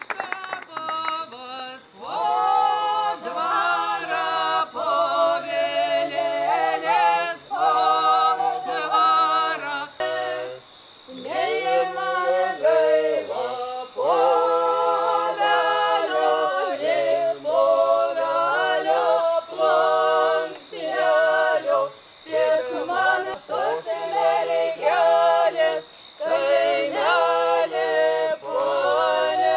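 Unaccompanied singing by a small group of voices in phrases a few seconds long with short breaks between them, a low part holding long notes beneath the higher lines.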